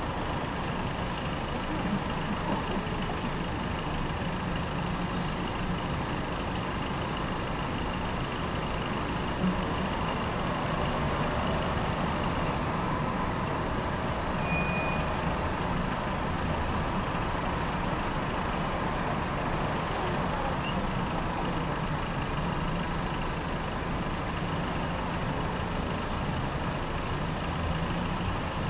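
Tram running along its rails with a steady rumble and hum, and a brief high squeak about halfway through.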